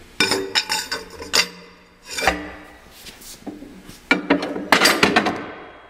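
Metal clanks and scraping from the breech of the Moffatt 12-pounder breechloading cannon as a cartridge case is pushed into the chamber and the breech is closed with its hand lever. There are several sharp clicks at first, a ringing clank a little over two seconds in, then a longer run of scraping and clatter near the end.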